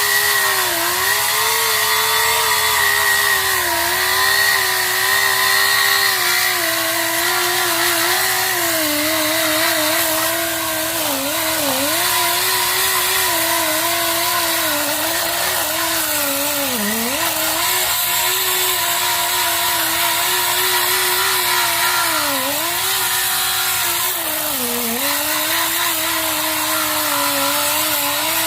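Repaired 7-inch pneumatic disc grinder running on a performance test: a steady motor whine over loud air hiss. The pitch dips briefly several times as the speed sags and recovers.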